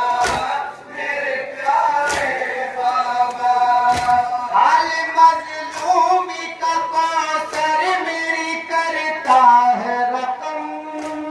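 Male voices chanting a noha, a Shia lament, in long, drawn-out wordless notes. Sharp slaps of hand matam land about every two seconds in the first four seconds.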